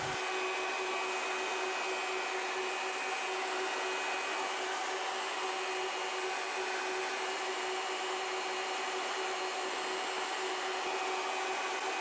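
Carrier 30GT chiller running: a steady whirring hiss with faint steady tones, with system B's compressor on and the condenser fans turning.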